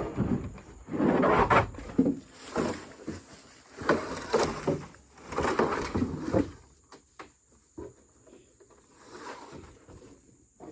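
Plastic panels of a Rubbermaid resin shed being handled, with irregular knocks, bumps and rattles through the first six or seven seconds. It then falls quiet but for a few faint clicks.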